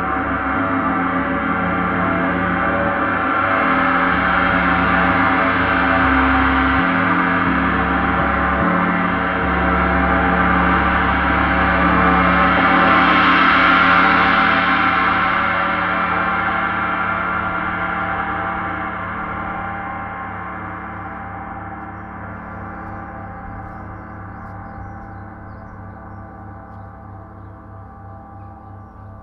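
34-inch Paiste Symphonic gong played with felt mallets, a dense wash of many overlapping tones that swells to its loudest about halfway through and then is left to ring, slowly dying away.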